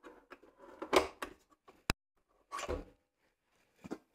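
Handling knocks and clicks from a Kenwood Titanium Chef Baker XL stand mixer while a mixing attachment is swapped, the motor off: a series of separate knocks, the loudest about a second in, with a sharp click just before two seconds.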